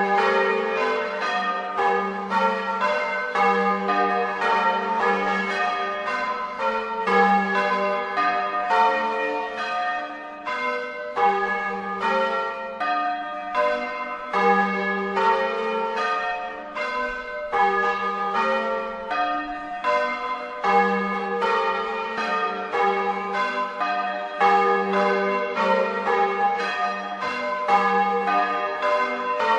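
A peal of church bells rung in the Bolognese manner: several bronze bells of different pitches struck in steady succession, a few strikes a second, each ringing on into the next.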